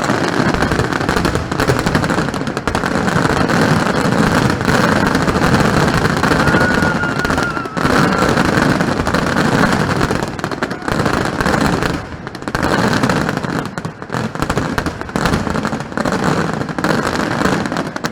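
Aerial fireworks going off in a dense, continuous barrage, with many overlapping bangs and crackles. A faint whistle rises briefly about six to seven seconds in.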